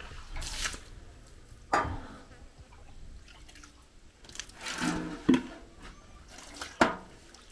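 Water scooped with a small bowl from a metal basin and poured out in several short splashes, with a few sharp knocks among them.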